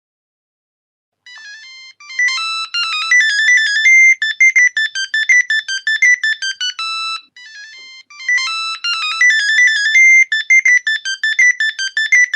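Polyphonic ringtone of an old mobile phone: a soft opening phrase, then a fast, bright synthesized melody of quick notes. The tune ends about seven seconds in and starts over from its soft opening.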